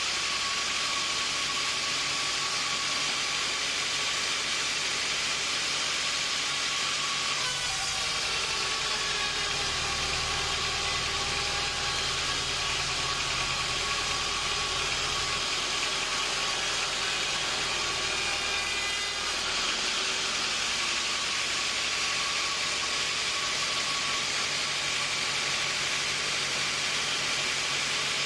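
Sawmill machinery running steadily with a hissing, engine-like noise. From about seven seconds in, a deeper hum joins, its pitch dropping as it starts; it rises again and drops out about twelve seconds later.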